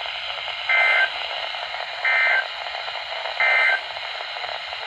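EAS end-of-message data bursts: three short, identical digital squawks about 1.4 seconds apart over a steady radio hiss. They mark the end of the severe thunderstorm warning broadcast.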